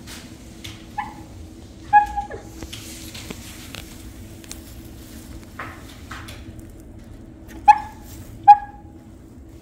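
Four short, high-pitched animal cries, each dropping slightly in pitch: one about a second in, one at two seconds, and two louder ones near the end. A steady low hum runs underneath.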